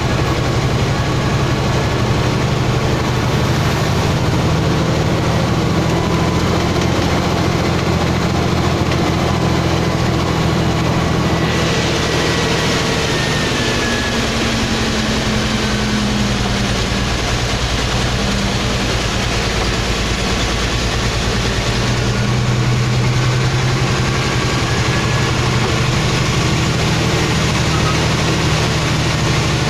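Heavy truck's diesel engine running steadily under load, heard from inside the cab, with road and tyre noise on a wet road. Partway through, the engine note shifts and the hiss of road noise grows louder for a while.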